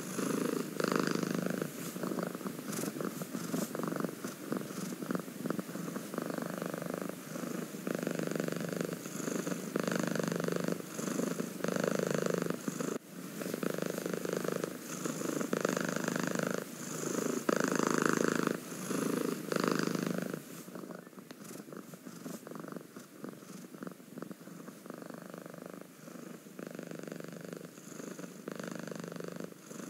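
Domestic cat purring close up, a steady rumble that swells and fades with each breath, about once every second and a half. About two-thirds of the way through, the purring becomes softer.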